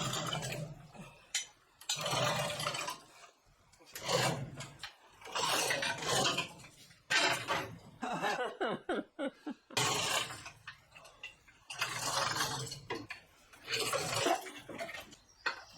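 Metal chain of a 2-ton endless-chain hoist clinking and rattling as the hand chain is hauled in repeated pulls, a burst about every two seconds.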